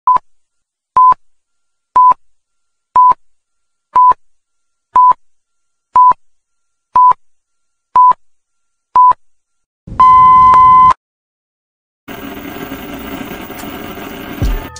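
Film-leader countdown beeps: ten short beeps at one pitch, one a second, then a longer beep held for about a second. After a short gap comes a hiss of TV static, with a low thud at the very end.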